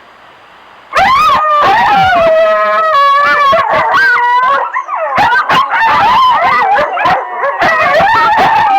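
Several coyotes howling and yipping together, starting suddenly about a second in after faint hiss: many wavering, gliding calls overlapping at once.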